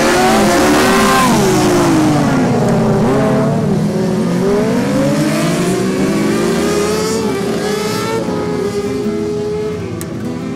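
Several SuperModified racing ride-on lawn mowers' engines running hard as they race past, their overlapping engine notes rising and falling as the drivers accelerate and back off through the cones.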